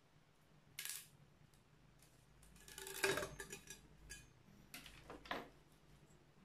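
Light metallic clinks and clatter as a circular saw blade and its fittings are handled and seated on the Modern M-2600L saw's arbor. There is one knock just under a second in, a busier cluster of clinks around three seconds in that is the loudest, and two more short clinks near five seconds.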